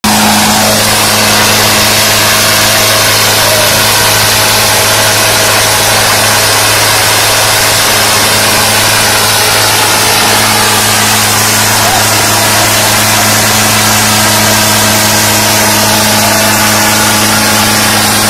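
Mahindra Arjun and Preet tractor diesel engines running hard under load in a tug of war, a loud, steady drone that holds its pitch throughout, with crowd voices mixed in.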